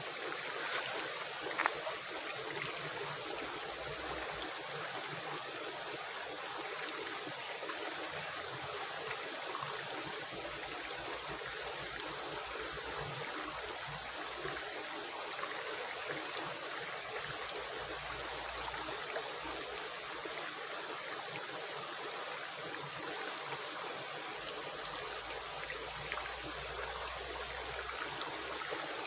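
Rushing river water running steadily with a gurgling rush, and one brief sharp tick about a second and a half in.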